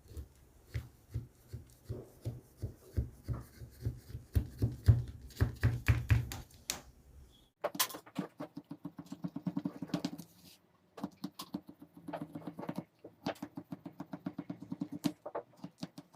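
Repeated knocking and scraping of a kitchen utensil, two or three strokes a second. After about seven seconds it changes to quicker runs of lighter strokes in short groups.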